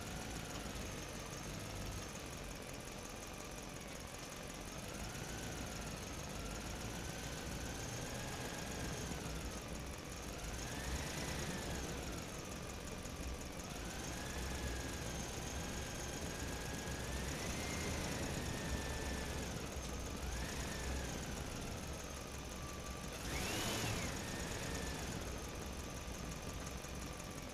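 Engine running, its whine rising and falling in pitch every few seconds as if revving, over a steady low rumble, with a sharper rise and fall a few seconds before the end.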